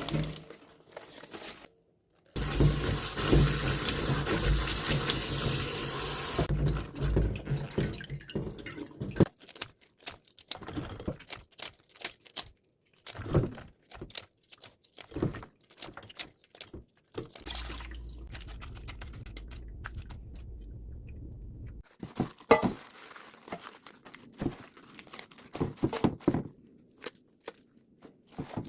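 A kitchen tap runs into a sink for about four seconds, then stops. Scattered splashes and knocks of hands working in water follow, with a low steady hum for about four seconds in the middle.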